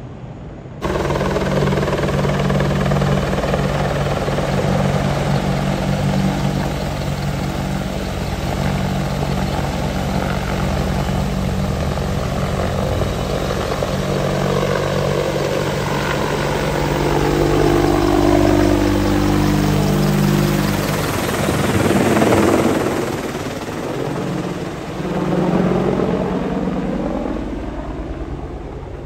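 Boeing AH-64E Apache Guardian attack helicopter flying low and close: steady beat of the main rotor over the whine of its twin turboshaft engines. It starts abruptly about a second in, is loudest and shifts in pitch as it passes closest past the middle, and fades somewhat near the end.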